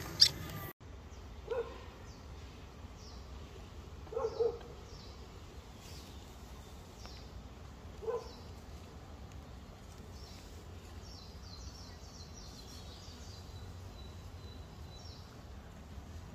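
Outdoor ambience with faint bird chirps repeating high up in the background, and three short squeaks spread over the first half.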